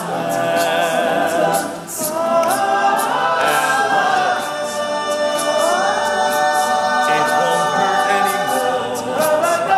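Men's a cappella group singing in close harmony without words, holding chords that slide upward together twice.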